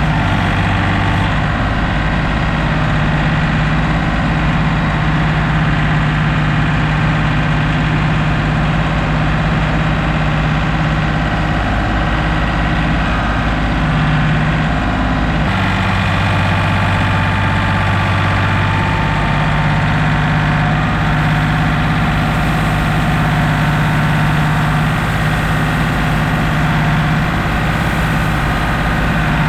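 Heavy machinery engine running steadily, its note dropping lower about halfway through and rising again a few seconds later, as the machine works at loading stone.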